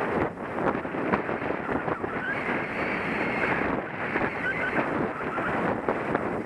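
Skis running over a snowy piste with a steady hiss and scraping, mixed with wind noise on the microphone.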